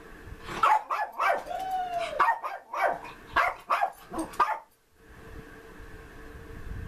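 Dog barking in a quick run of short, sharp barks, with one longer whining call that falls in pitch partway through. The barking stops a little over four seconds in.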